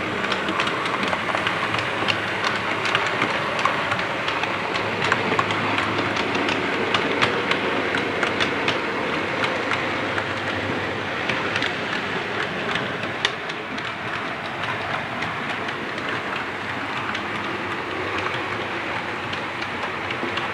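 Model railway train running along the track: a continuous rushing rumble over a steady low hum, with many small irregular clicks of wheels over the rail joints.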